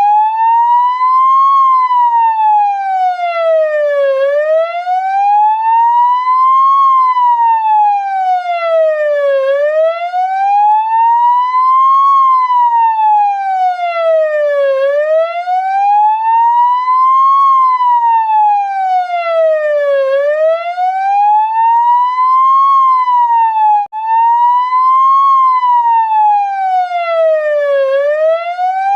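Ambulance siren in a slow wail, its pitch rising and falling smoothly about once every five seconds. It breaks off for an instant near the end and picks straight up again.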